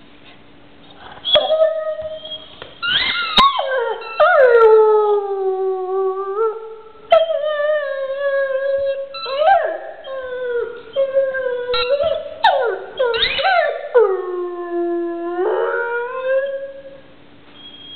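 A dog howling: a series of long howls, the longest starting high and sliding down to a low held note, with shorter broken cries between them.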